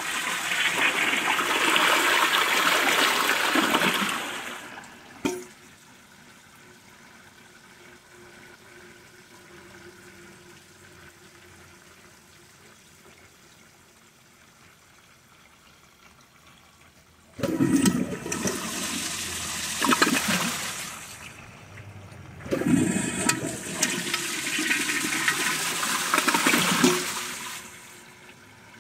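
Kohler Gleam toilet flushing three times: a loud rush of water through the bowl that stops about four seconds in with a short knock, then a quiet steady hiss of the tank refilling, then two more flushes in quick succession later on.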